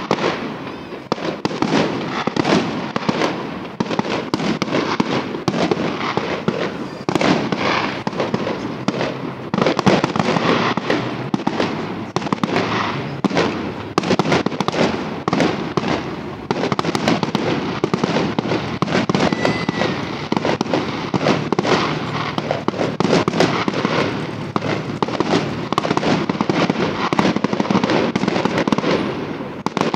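Aerial fireworks going off in a dense, continuous barrage of bangs and crackles, with no pause.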